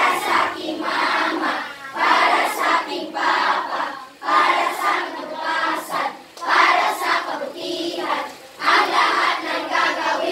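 A class of schoolchildren singing together in unison, in phrases of about two seconds with short breaks between them.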